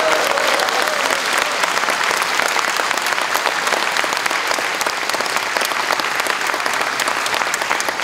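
An audience applauding: many hands clapping steadily, easing off slightly toward the end.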